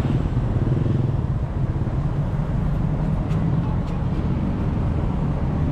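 Slow, congested road traffic: motorcycle and car engines running at low speed close by, a steady low engine sound.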